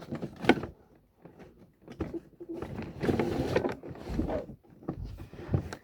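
Things being handled while rummaging through a drawer: a sharp knock about half a second in, a few light clicks, then rustling about three seconds in.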